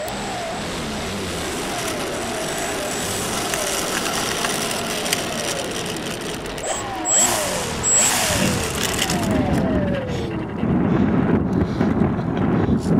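Brushless outrunner motor and 13x4 propeller of an electric foam RC aerobatic plane whining on the ground, the pitch sliding down several times as the throttle is eased off. In the last couple of seconds wind buffets the microphone.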